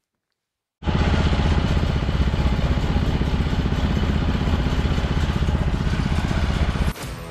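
An engine running steadily with a fast, even pulse. It starts abruptly about a second in and drops away just before the end.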